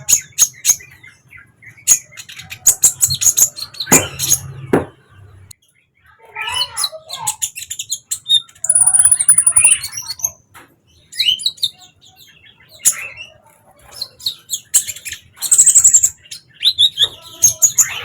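Sunbird song: rapid high chirps, twitters and trills in bursts of one to two seconds, with short pauses between phrases and a few thin high whistled notes.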